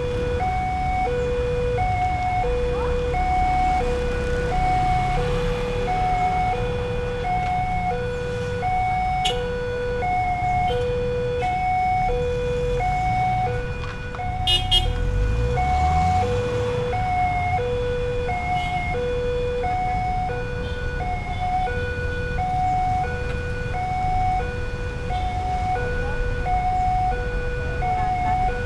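Railway level crossing warning signal sounding, a repeating two-tone alarm with a lower and a higher note taking turns about once a second, over the rumble of queued road traffic engines. About halfway through, a nearby car engine rises in pitch as it pulls away.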